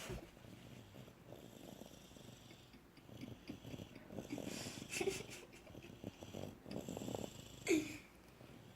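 Snoring, with a short squeaky whistle about five seconds in and a louder, falling squeak near the end.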